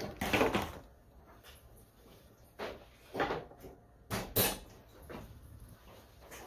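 A few short clunks and rattles of fittings being handled as the ParaPac transport ventilator's oxygen supply hose is connected to the oxygen source, the sharpest about four seconds in.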